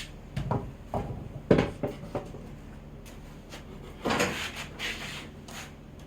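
Wooden frame being shifted and handled: four sharp wooden knocks in the first two seconds, the third the loudest, then a scraping rustle about four seconds in.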